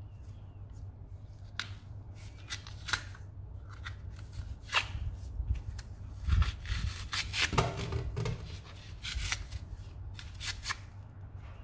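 A small blade scraping and cutting through a fuel filter's pleated paper element, with paper rustling and tearing as strips are pulled away: irregular short strokes, busiest and loudest in the middle. A faint steady low hum runs underneath.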